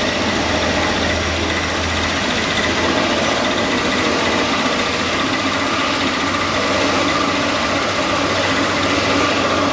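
Jet airliner's engines: a steady rush of noise with a faint whine running through it.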